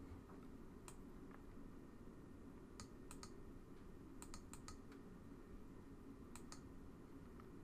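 Faint clicks of a computer mouse, about a dozen, scattered singly and in quick runs of two to four, over a low steady room hum.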